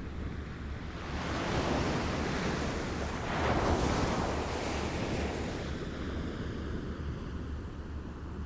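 Small waves lapping on a shore: one wave swells in about a second in, breaks and washes up, then slowly ebbs away, over a low steady rumble of surf.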